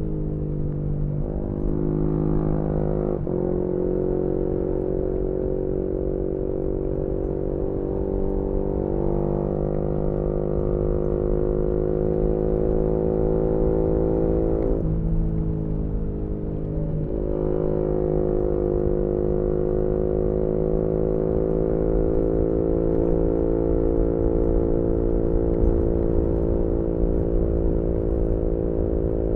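Yamaha MT-125 single-cylinder engine with an aftermarket GPR exhaust under way, mostly holding steady revs. Its pitch dips sharply and climbs back twice, once near the start and once about halfway through.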